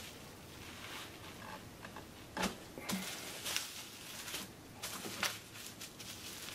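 Bubble wrap rustling and crinkling as it is handled and folded around a plastic-wrapped cutting board, with a few sharper crackles.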